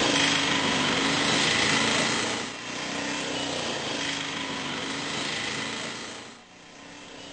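Auto-rickshaw's small engine running as it pulls away: loudest for the first two seconds, steadier and quieter after that, and fading out about six seconds in.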